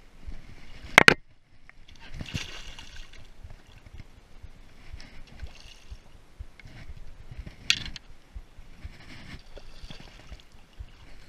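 Water splashing and sloshing against a plastic kayak as a hooked kingfish is brought alongside the hull. Sharp knocks on the kayak cut through: two close together about a second in and one more about two-thirds of the way through.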